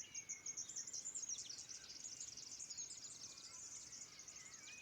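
Faint birdsong in the open air: fast, high chirping over the first couple of seconds, then short whistled, gliding notes, with more near the end.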